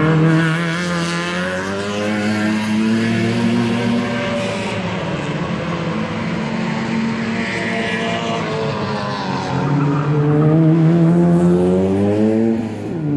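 Race car engines revving hard under acceleration on a circuit. The pitch climbs for several seconds at a time, eases back, climbs again and drops sharply near the end.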